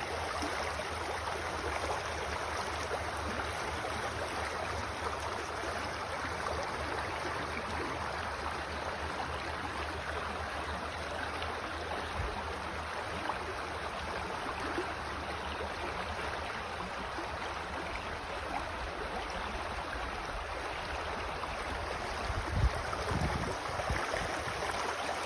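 Creek water running steadily over rocks, an even rushing babble with a low rumble beneath it. A brief thump sounds once near the end.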